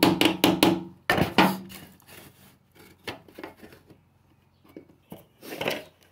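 Hammer tapping a screwdriver or punch to knock plastic plugs out of a steel MK2 Golf front wing: about five quick sharp knocks, each with a short metallic ring, then quieter handling and scraping, and one more knock near the end.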